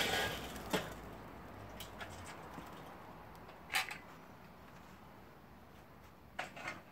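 Lit charcoal being emptied from a metal chimney starter into a Weber kettle grill: the clatter of the tumbling coals fades within the first second. A few sharp metallic clinks follow, a loud one about four seconds in as the empty chimney is lifted away.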